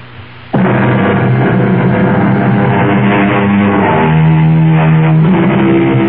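Music starts abruptly about half a second in: sustained chords over a held bass note that steps to new pitches a few times.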